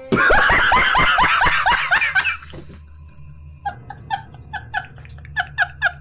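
A man laughing hard in a fast run of loud bursts that breaks off after about two and a half seconds. Quieter, spaced chuckles follow, about three a second.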